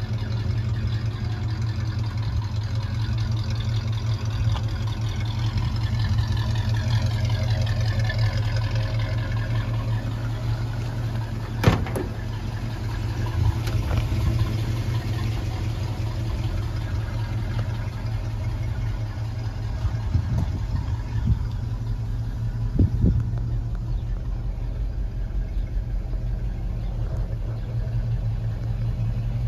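1964 Chevrolet short-bed pickup's engine idling steadily. A sharp click of the driver's door latch comes about twelve seconds in, and a few lighter knocks follow later.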